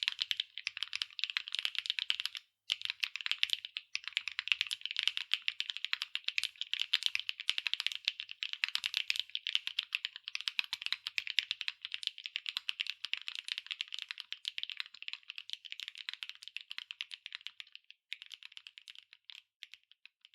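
Steady, fast typing on a JRIS65 R2 custom mechanical keyboard with HMX Glaze Jade linear switches, an aluminium plate and PBT double-shot keycaps: a dense run of quick key clacks with a few short pauses. The typing thins out near the end.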